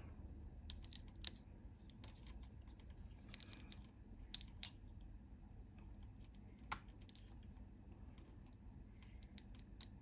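Faint, scattered small clicks and taps as fingers work the opened plastic power slide switch of an Amstrad CPC464, pressing its metal contact back into the housing. The clicks are irregular, a few sharper than the rest.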